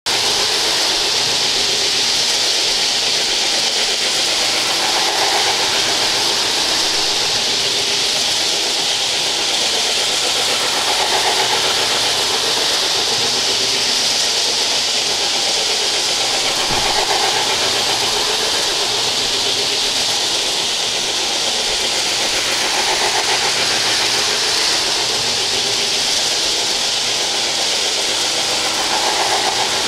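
O gauge model steam freight train running on its track: a steady hissing rush from the running locomotive and the wheels on the rails. A faint swell comes back about every six seconds.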